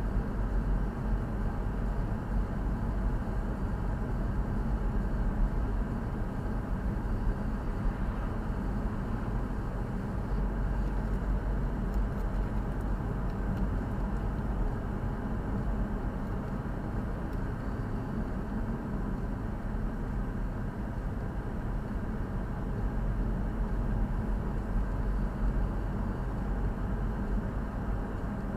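Steady engine and road noise of a moving car, heard from inside the cabin: an even low rumble with no sudden changes.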